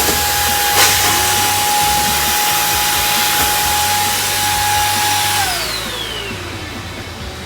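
Imarflex bagless cyclone vacuum cleaner running with a steady high whine, with a sharp click about a second in; about five seconds in it is switched off and the motor winds down, its whine falling in pitch as the noise fades.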